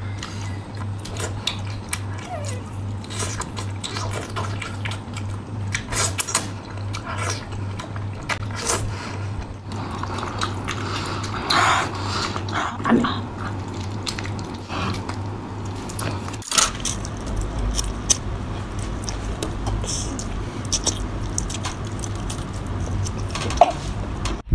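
Close-miked eating sounds: wet biting, chewing and sucking on whole octopus coated in chili oil, with many sharp smacks and clicks. A steady low hum runs underneath and stops suddenly about two thirds of the way through.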